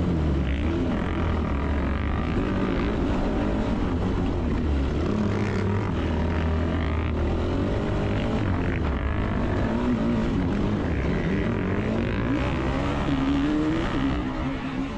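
Yamaha YFZ450R race quad's single-cylinder four-stroke engine at race pace, heard from on board, its pitch rising and falling as the rider works the throttle and gears.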